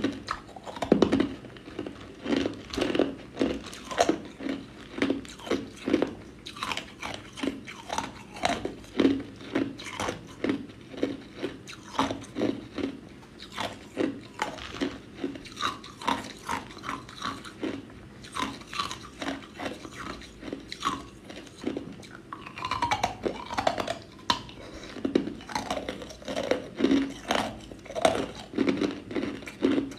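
Clear ice cubes crunched between the teeth: a steady run of sharp bites and chewing crunches, about two a second.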